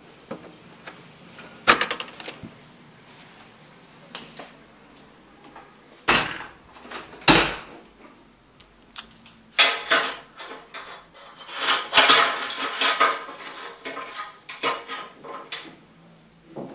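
Door handles and latches being worked: metal clicking and rattling, with a few sharp knocks, the two loudest about 6 and 7 seconds in, and a longer clatter later on.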